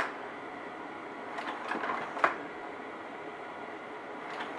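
Vivitar 5000AF slide projector running with a steady whir, its slide-change mechanism clicking as it advances the tray forward: a click at the start, then a short run of clicks ending in a sharper one about two seconds in.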